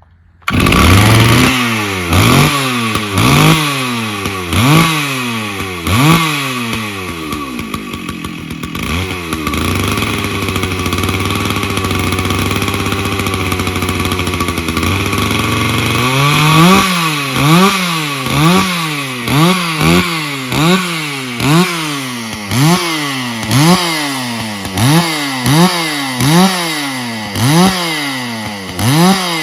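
Stihl 064 two-stroke chainsaw coming in abruptly and being revved in repeated throttle blips, settling to a steady idle for several seconds midway, then blipped again about once a second.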